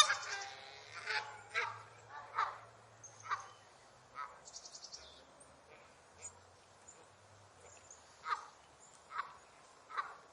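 Geese honking: a series of separate honks roughly a second apart, the loudest right at the start, thinning out through the middle and picking up again near the end. A short run of rapid high chirps comes about four seconds in.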